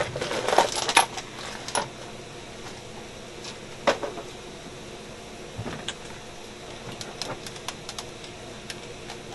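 Light metallic clicks and clinks of small metal parts and leads being handled on a workbench while equipment is connected up, busiest in the first two seconds, with one sharper click about four seconds in and scattered softer clicks after.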